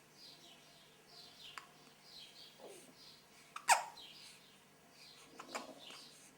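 Newborn baby hiccuping: three short hiccups about two seconds apart. The middle one is the loudest and ends in a little squeak that falls in pitch. Faint high chirping runs behind throughout.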